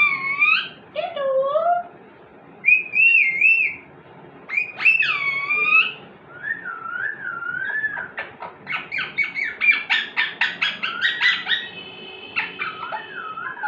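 Pet parrot giving a series of whistled calls that swoop and waver in pitch, then a fast run of short chirps, about four or five a second, in the second half.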